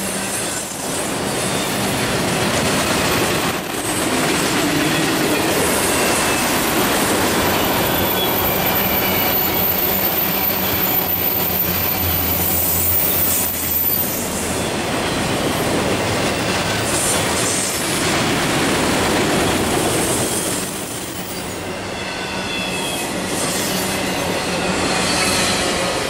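Empty autorack freight cars rolling past at close range: a steady rumble and clatter of steel wheels on rail, with wheel squeal coming and going.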